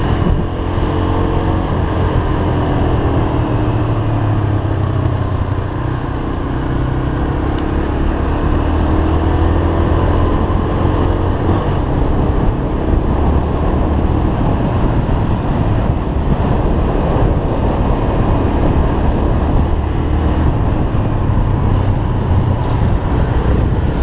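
Motorcycle engine running while riding, its pitch rising and falling with the throttle, with wind noise over the microphone.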